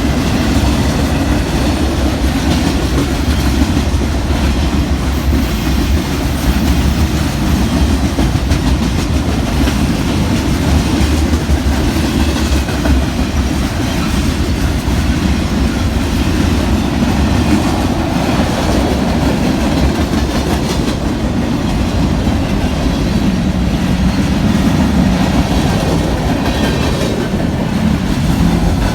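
Union Pacific mixed freight train's cars rolling past at speed: a steady, loud rumble with the clickety-clack of wheels over the rail.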